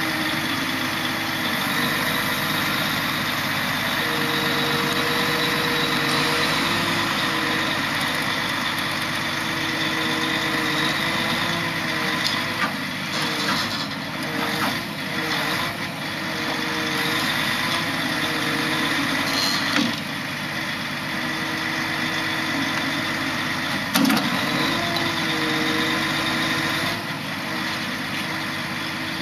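A lorry's diesel engine running steadily while it powers a truck-mounted hydraulic knuckle-boom crane lifting a precast hollowcore concrete slab, its pitch stepping up and down a few times as the crane works. Several short sharp knocks sound over it, the loudest about three-quarters of the way through.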